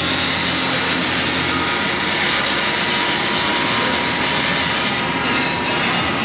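Shop power tool running on an exhaust system with a loud, steady rushing hiss; its highest part drops away about five seconds in.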